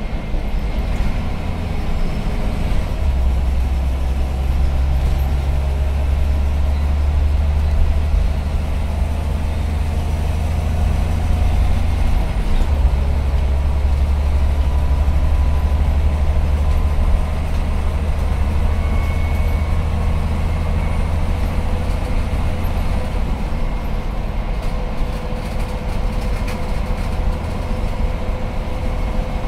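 Scania CN94UB OmniCity bus engine heard from inside the saloon while the bus is under way and being worked hard. A loud, deep engine drone grows stronger about three seconds in, dips briefly around the middle and eases off near the end. A faint whine creeps slowly up in pitch over a steady road noise.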